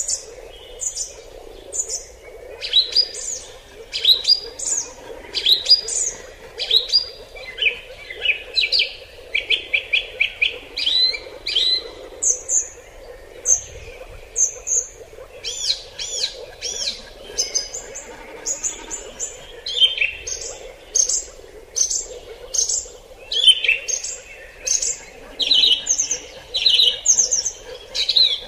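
Wild birds singing: a dense chorus of short, high chirps and whistled notes, many sweeping sharply in pitch, repeated in quick runs throughout, over a faint low steady hum.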